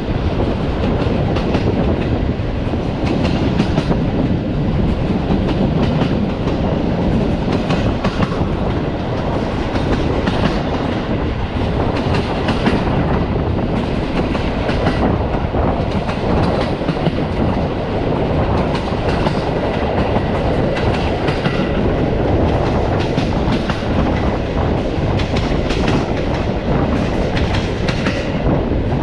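Passenger train carriage running along the line: a steady rumble of wheels on rails, with frequent irregular clicks and knocks from the wheels passing over rail joints.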